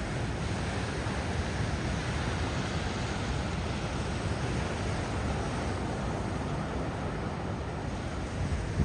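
Ocean surf from a large hurricane swell breaking, heard as a steady, even wash of noise.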